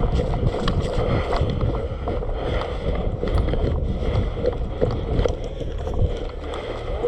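Wind rumbling on a body-worn microphone, with irregular clicks and knocks from movement and gear handling.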